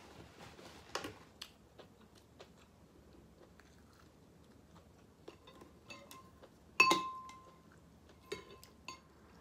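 Quiet eating sounds: soft chewing and small clicks, then a sharp clink of tableware about seven seconds in that rings briefly, followed by two lighter ringing clinks.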